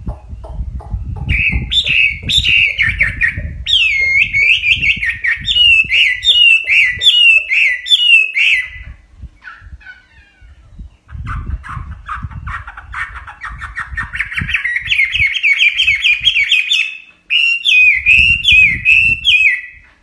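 Chinese hwamei (Garrulax canorus) singing: loud runs of repeated whistled phrases, a pause about nine seconds in, then a fast series of notes climbing steadily in pitch, followed by more whistled phrases.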